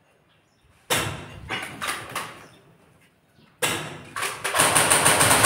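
Airsoft guns firing in a building: a few single shots about a second in, then a rapid burst of automatic fire near the end, the shots trailing off in the room's echo.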